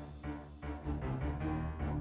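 Background music of a TV news report: low sustained notes with soft, regular percussive hits.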